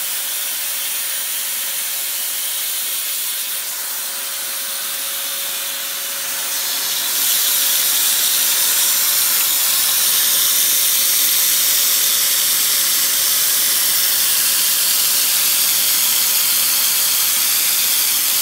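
Belt grinder running with a mist-coolant spray hissing steadily over the belt, under a thin steady tone. About seven seconds in the sound grows louder and brighter as a knife blade is pressed into the belt over the contact wheel, hollow-grinding it.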